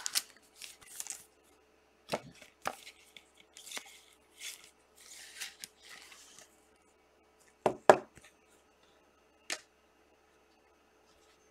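Trading cards and clear plastic card holders being handled: scattered rustles and light clicks, with two sharp taps close together about eight seconds in and another a couple of seconds later.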